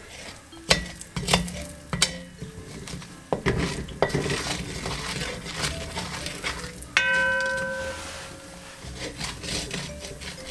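A utensil stirring and scraping in a pan of curry powder and sugar, with repeated clinks and knocks and a faint sizzle. About seven seconds in, the utensil is knocked against the pan and it rings for about a second.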